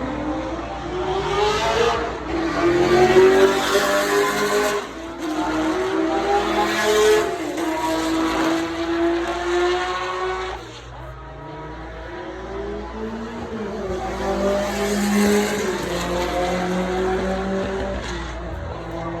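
Sports car engines revving and accelerating in a run of short clips, the engine note climbing and falling with each rev, with abrupt changes from one clip to the next. The sound is quieter after about eleven seconds.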